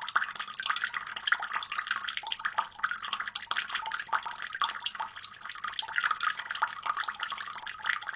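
Water running from a faucet, a steady splashing stream with many small spattering drops.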